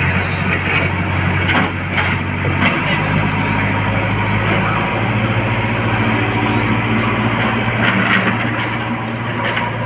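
Heavy diesel engine running steadily, its speed stepping up twice, with a few knocks and clanks over it.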